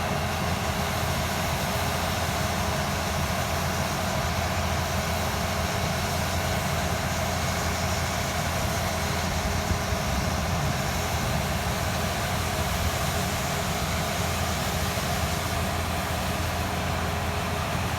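John Deere S780 track combine running steadily, a constant even machine drone with a few steady hum tones that do not change pitch.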